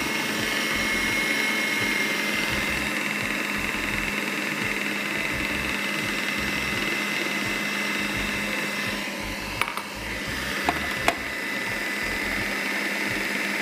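Electric food processor motor running steadily as its blade cuts butter into flour for pastry dough. The motor sound dips briefly about ten seconds in, with a few sharp clicks.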